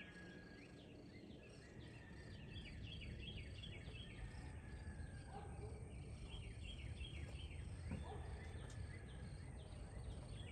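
Faint runs of short high chirps, several a second, which the listener takes for woodpecker nestlings calling from inside the nest hole, over a low steady outdoor rumble.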